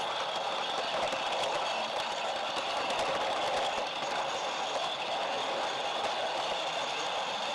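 HO-scale model train running along its track: a steady whirring rattle of wheels on rails, with faint scattered clicks.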